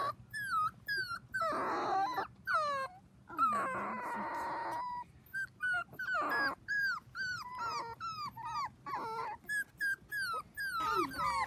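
Four-week-old Dachshund puppy whimpering: a quick run of short, high squeaks, broken by two longer cries about two and four seconds in.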